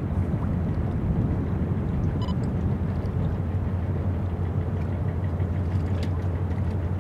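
Steady low engine rumble from a large container ship and the tugs assisting her across the water.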